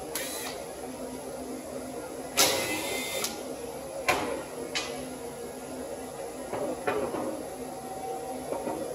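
Gloved hands handling metal tools and a new brake caliper on a steel lift: several sharp clinks and knocks over a steady shop hum, with a short hiss lasting about a second, roughly two and a half seconds in.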